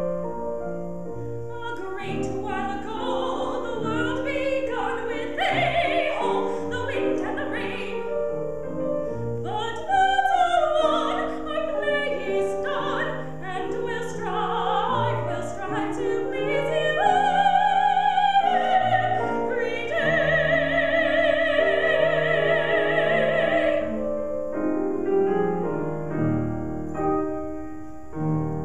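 Lyric soprano singing a classical art song with Steinway grand piano accompaniment. She holds a long high note with vibrato for about four seconds near the end, then the piano plays on alone.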